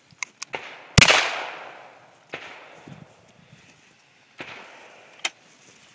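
A 12-gauge double-barrel shotgun firing one loud shot about a second in, the report trailing off over about a second. Two fainter bangs follow, then a sharp click near the end.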